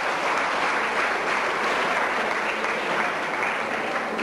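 Seated audience applauding steadily.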